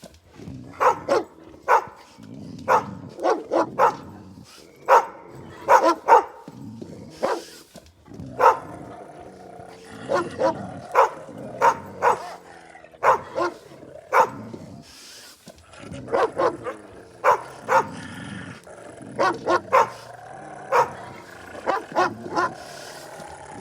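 Aggressive dog barking hard in rapid clusters of two to four barks, with low growling between them.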